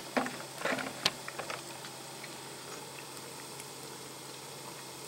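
Water in a stainless steel pot on an alcohol stove heating to the edge of a boil, giving a faint steady hiss with light ticking and pattering from small bubbles. A few light clicks come in the first second and a half.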